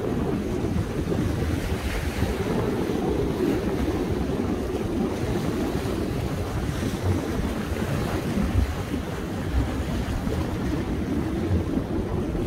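Wind buffeting the microphone in a steady low rumble, over the wash of sea surf.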